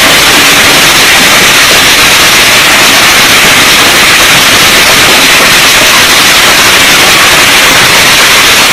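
Heavy hailstorm pelting down: a very loud, steady hiss with no break.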